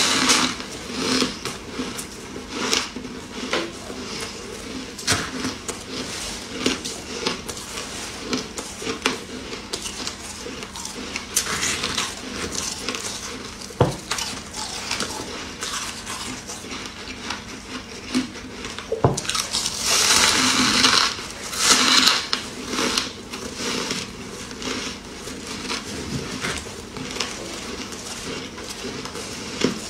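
Close-up crunching and chewing of snow-like white ice: a run of short, crisp crunches as a chunk is bitten and chewed, with a louder, denser stretch of crunching about twenty seconds in.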